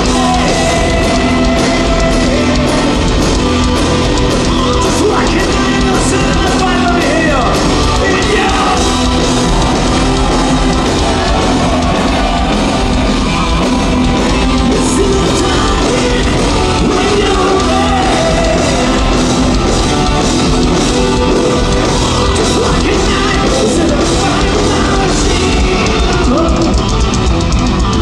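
Heavy metal band playing live: distorted electric guitars, drums, keyboards and singing at a loud, steady level, heard from within the crowd in front of an open-air stage.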